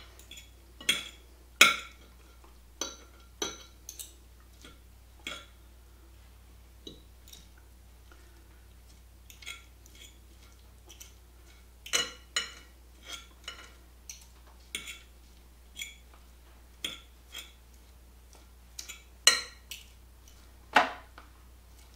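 Two metal forks clinking and scraping against a plate at irregular intervals while shredding cooked chicken breast. The louder clinks come near the start, about halfway through, and near the end.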